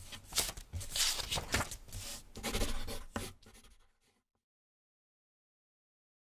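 Scratchy handwriting sound: a rapid series of short writing strokes that thins out and stops about four seconds in.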